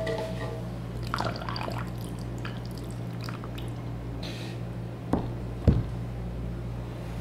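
Dark liquid poured and dripping into a tall glass of ice and fizzy liquid, with scattered small ticks and clinks. Near the end, a sharp click is followed by a low thump as a wooden serving board is set down on the table. A steady low hum runs underneath.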